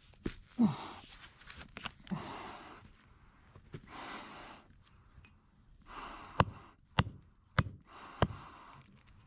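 A person's heavy breathing with sighs and falling grunts of effort while wrenching a hatchet stuck in a hard stump. Near the end come four sharp knocks, evenly spaced about half a second apart.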